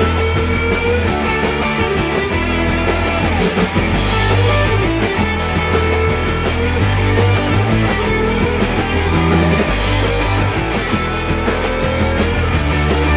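Background rock music with electric guitar and a steady bass line.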